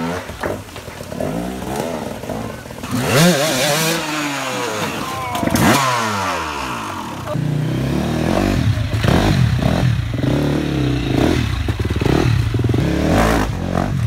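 Enduro dirt bike engines revving hard in bursts, the pitch climbing and falling sharply, then running at lower throttle with short blips from about seven seconds in.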